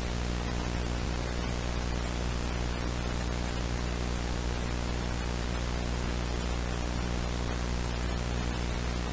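Steady hiss of static with a low electrical hum beneath it.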